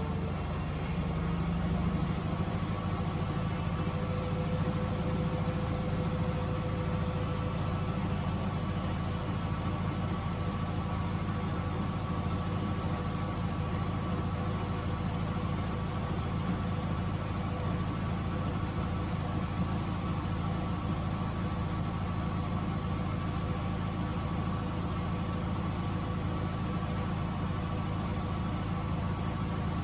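Miele W Classic WDA211WPM washing machine with its drum spinning fast: a steady hum with a motor whine on top. The whine rises slightly over the first few seconds, then holds steady.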